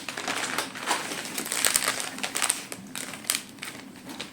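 Small packets of protein drink powder crinkling and rustling as they are handled, with irregular crackles and clicks.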